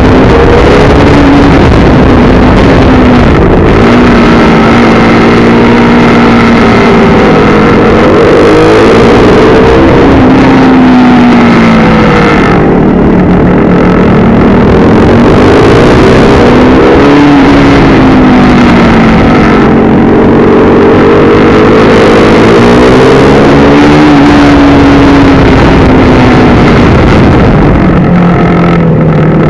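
KTM RC390's single-cylinder engine, heard up close from an onboard camera, revving up under throttle and dropping back again and again through gear changes and corners while lapping a track.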